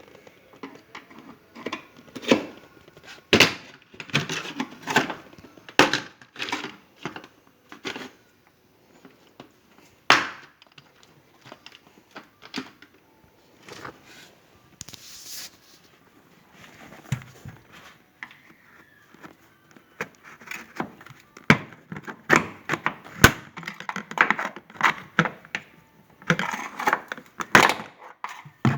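Plastic interior car trim panels being pried and pulled off by hand: a run of sharp cracks, clicks and knocks as the clips let go, coming in busy flurries with a quieter stretch in the middle.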